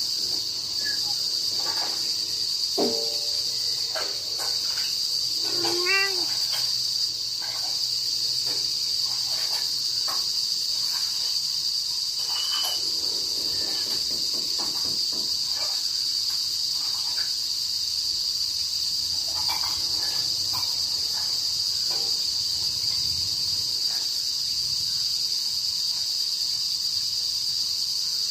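A steady, unbroken high-pitched chorus of crickets, with a few faint brief calls scattered over it in the first half.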